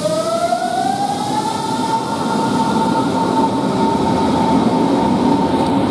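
Berlin S-Bahn electric train pulling away: the traction motors whine, rising in pitch for about the first second and a half and then holding a steady tone, over a growing rumble of wheels on rail.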